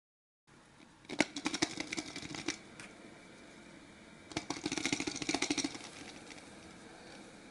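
Foil wrapper of a chocolate egg crinkling as it is handled, in two bursts of rapid crackles of about a second and a half each, starting about a second in and again about four and a half seconds in.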